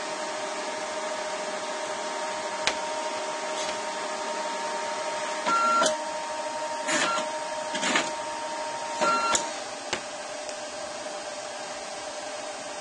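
Mitsubishi CP-K60DW dye-sublimation photo printer with a steady hum while a print job spools to it, broken by four short louder bursts of mechanism noise between about five and a half and nine and a half seconds in.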